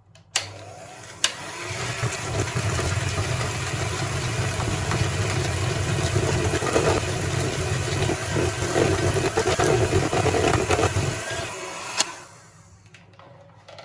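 Electric hand mixer running at medium-high speed, its beaters whirring through eggs and creamed butter and sugar. It starts about half a second in and stops with a click about twelve seconds in.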